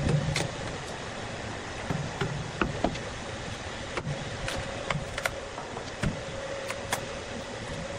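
Irregular sharp knocks and duller thuds of a hammer chipping and prying rotten wood off a weathered log, over a steady hum.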